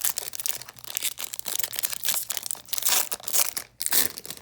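A Commander Legends booster pack's foil wrapper crinkling and tearing as it is ripped open by hand, with dense crackling throughout.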